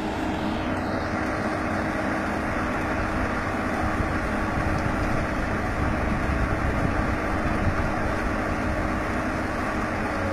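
Diesel engine of a SANY SY210C-9 21-ton excavator running steadily, with a constant hum.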